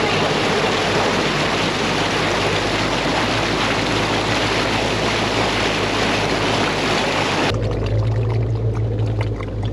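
Loud, steady rushing and splashing of water as a four-wheel drive pushes through a river crossing. About seven and a half seconds in it cuts off suddenly to the steady low hum of the vehicle's engine.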